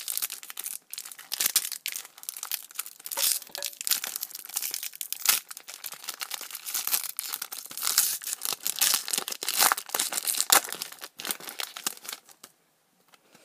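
Foil wrapper of a Pokémon trading-card booster pack crinkling and tearing as it is ripped open by hand, a dense, irregular crackle that stops about a second before the end.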